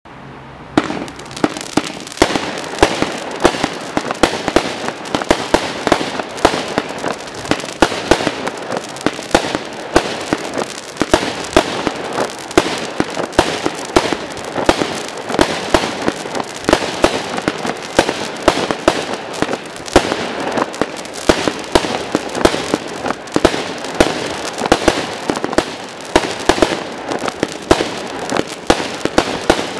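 Zeus Fireworks 'Phoenix Rising' 100-shot barrage cake firing, starting about a second in. Sharp launch bangs come about two a second over a continuous crackling from its corkscrew tails.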